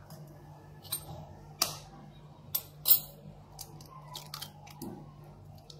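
An egg being cracked by hand over a glass bowl: a series of sharp shell clicks and cracks, the loudest about three seconds in, followed by lighter ticks.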